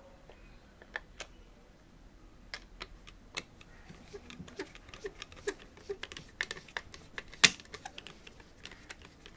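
Light, irregular clicks and ticks of a screwdriver working screws out of a hard drive's plastic mounting carrier, with one sharper click about three-quarters of the way through.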